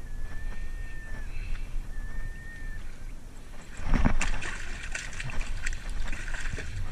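A salmon thrashing in shallow water among shoreline rocks: splashing and sloshing that starts suddenly about four seconds in and keeps on in sharp bursts. Before that come two short, steady, high whistle-like tones.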